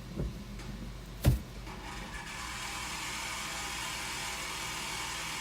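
Nissan Note (E11): a light thump, then a sharp knock about a second in, followed by a steady whirring hiss that starts about two seconds in and holds, like a fan or blower running.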